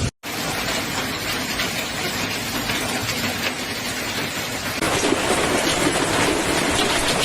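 Heavy storm rain falling: a steady rushing hiss with fine pattering, which shifts abruptly at a cut about five seconds in.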